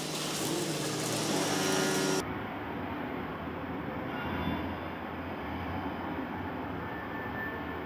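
Street noise at a tram stop: a steady low rumble of passing traffic or a tram. The first two seconds hold a brighter, hissier noise that cuts off abruptly.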